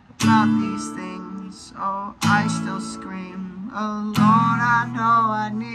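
Acoustic guitar, capoed, strummed in three full chords about two seconds apart, each left to ring and fade before the next.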